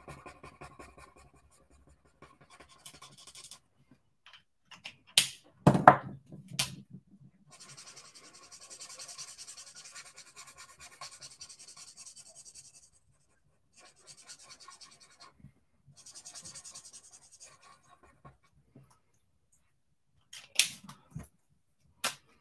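Soft scratching of a Stampin' Blends alcohol marker tip rubbed back and forth on cardstock while colouring, in several stretches. A few sharp knocks break in, the loudest about five to six seconds in and two more near the end.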